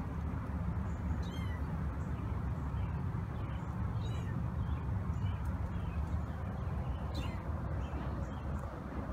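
Young kittens giving short, high-pitched mews every second or two over a steady low rumble.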